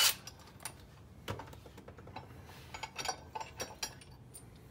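Light clicks and clinks of small metal parts being handled: the nut, bolt and stepped washer just taken off the engine's crankshaft end, and the socket. The clicks are scattered, with a cluster about three to four seconds in.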